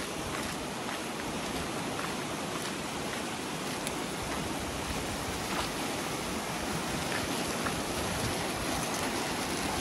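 Fast river water rushing over and past a low concrete causeway: a steady, even rush of white water.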